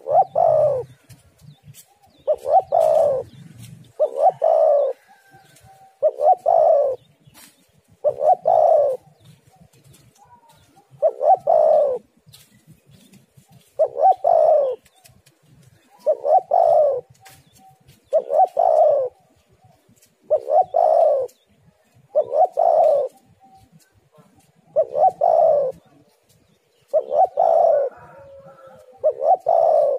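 Spotted dove (tekukur) cooing repeatedly: a short, loud coo phrase about every two seconds, with a couple of longer pauses.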